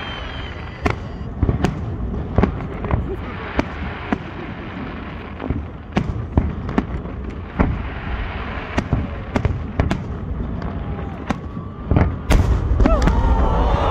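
Fireworks display: an irregular run of sharp bangs from bursting shells. A denser, louder barrage begins about twelve seconds in.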